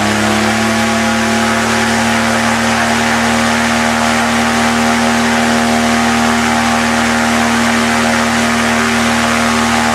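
A Suzuki car engine driving a large Neufron propeller through a reduction drive on a powered hang-glider trike, held at full throttle for a static thrust test. It runs at a steady pitch just under 5000 rpm, pulling about 140 kg of thrust.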